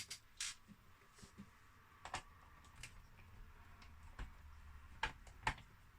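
Scattered faint clicks and taps of small hand tools and parts against a CD player's chassis as it is worked on, irregularly spaced, a few a second at most, with two louder ticks near the end.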